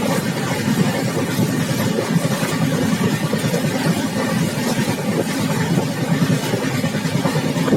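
Passenger express train running at speed, heard from its open exit door: a steady rumble of the wheels on the track mixed with a continuous rush of air.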